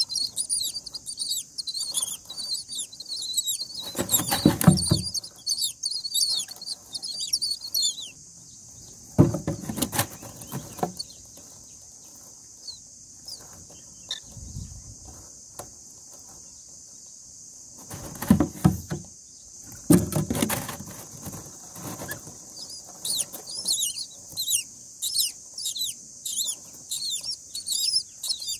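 Common myna nestlings begging with rapid, high-pitched cheeps while the adult feeds them at the nest. The cheeping drops out for a stretch in the middle, leaving a steady high hiss, and starts again near the end. Between these come several short bouts of rustling and wing flapping from the adult moving on the nest.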